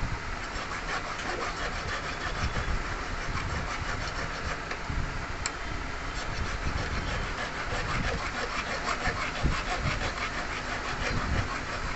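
Hand file rasping back and forth over the edge of a small sand-cast metal piece, fettling the rough casting in quick repeated strokes, over a low background rumble.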